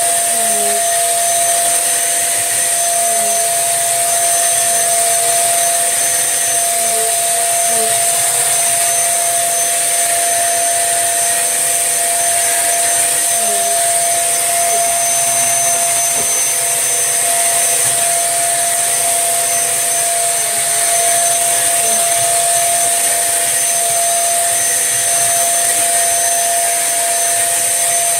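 Tesco own-brand 1800-watt bagless upright vacuum cleaner running steadily, its motor giving a constant high whine over the rush of air, with slight wavers in pitch as it is worked over the floor.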